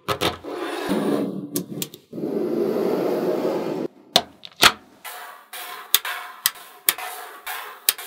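Magnetic metal balls grinding and scraping against one another and the table as a ball strip is split and moved. About four seconds in, this gives way to a series of sharp clicks as balls snap together.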